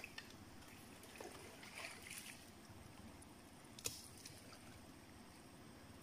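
Near silence: faint background hiss with a few light ticks and rustles, the sharpest tick about four seconds in.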